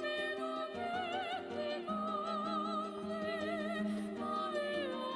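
Background music: a melody wavering in wide vibrato over long held notes, opera-like in character.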